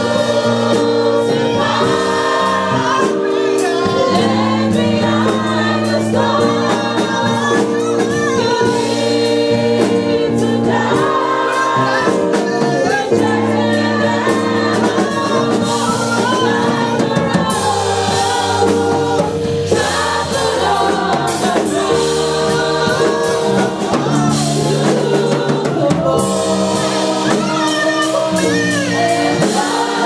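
Gospel worship song sung by a group of women's voices into microphones, with a lead voice over the group, backed by held chords that change every second or two.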